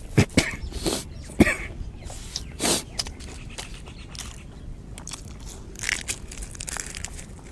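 Close-miked chewing and crunching of fried street snacks, with a few sharp clicks in the first second and a half and several short, noisy puffs scattered through.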